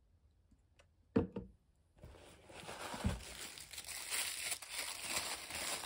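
Product packaging being crinkled and torn open, a continuous crackly rustling that starts about two seconds in, after a couple of brief knocks.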